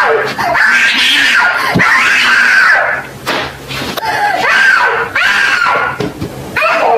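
A child screaming and crying in long, high wails, about three of them with short breaks between.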